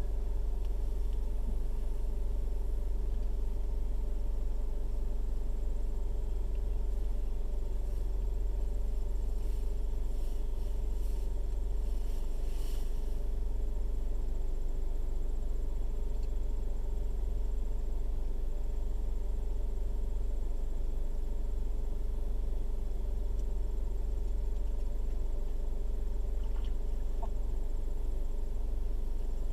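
Toyota Corolla's four-cylinder engine idling steadily at a low idle, heard from inside the cabin.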